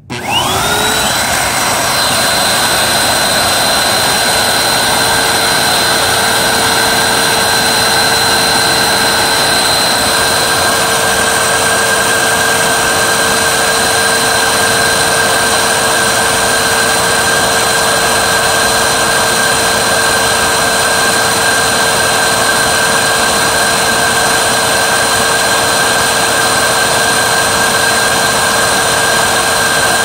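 Hoover WindTunnel 3 High Performance upright vacuum switched on: its motor spins up over about a second, the whine rising in pitch, then runs steadily at full speed.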